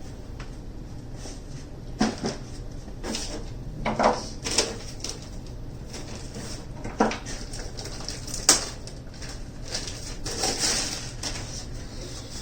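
Hard equipment and tools being handled: a string of separate knocks and clinks, the sharpest about eight seconds in, then a short scrape near the end.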